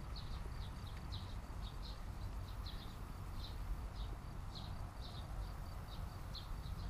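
Wind rumbling on the microphone in an open field, with short high chirps repeating about twice a second.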